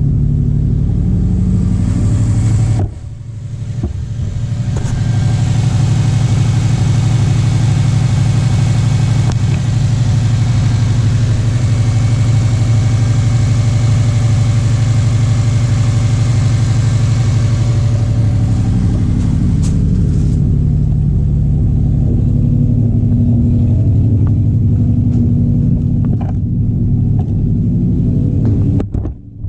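A 2005 Subaru WRX STI's turbocharged flat-four engine running, which has a cylinder-3 misfire and low compression in that cylinder. The revs dip briefly about three seconds in, are held higher from about five to eighteen seconds in, then ease back.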